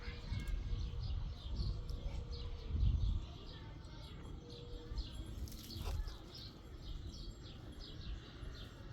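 Small birds chirping continuously, many short high chirps a second, over a low rumble that swells about three seconds in.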